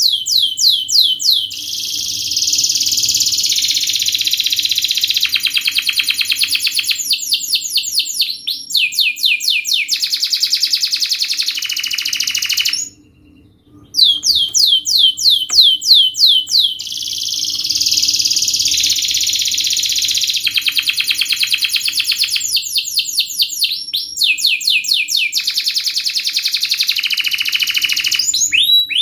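Domestic canary singing a long, high-pitched song of rapid trills and quick series of downward-sweeping notes, breaking off for about a second midway before carrying on.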